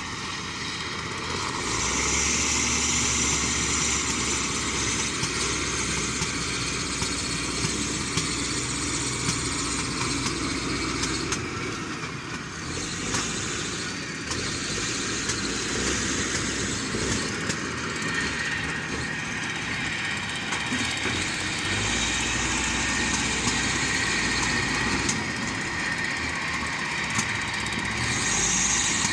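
Diesel engine of heavy earthmoving machinery, such as an excavator or backhoe loader, running continuously as it works. The level swells and eases, with a brief dip about twelve seconds in.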